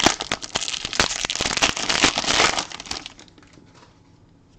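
Foil wrapper of a 2015 Topps Premier Gold soccer card pack being torn open and crinkled by hand: a dense crackle with sharp clicks for about three seconds, then it stops.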